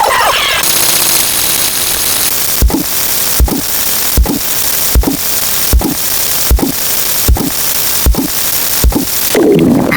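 Loud hiss of static-like noise. After about two and a half seconds it is joined by a steady beat of low thuds, about one every 0.8 s, nine in all.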